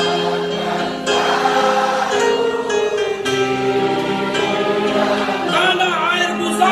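Music: a slow Indonesian-language devotional song sung over instrumental backing, with long held notes and a wavering sung line about six seconds in.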